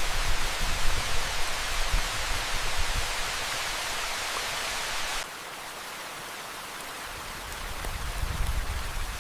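Steady rain hiss with low rumbling under it. About five seconds in the hiss drops abruptly to a quieter, thinner rain sound, and a low rumble rises again near the end.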